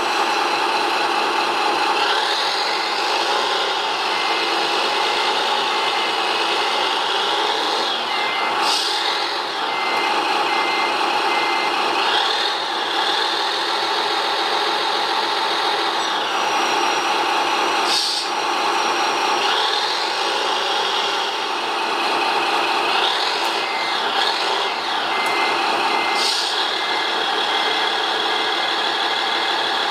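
Working noises of a radio-controlled model crane: electric motors whining up and down in pitch as the load is hoisted and slewed, over a steady mechanical drone. A warning beeper sounds about once a second for two stretches, and there are three short hisses.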